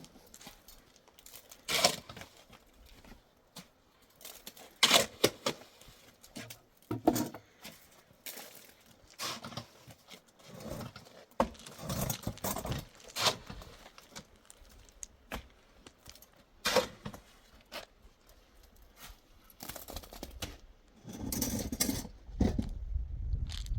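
Irregular knocks, clinks and rustles of things being handled, with a short spell of low rumbling noise near the end.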